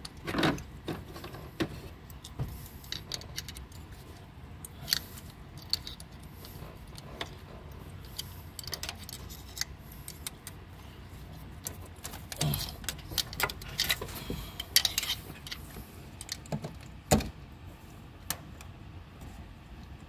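Irregular light metal clicks and clinks of hand work in an open cylinder head: a screwdriver levering the rocker arms and the valvetrain parts knocking together as the hydraulic lifters of a 4.7 L V8 are worked out with the camshaft left in place.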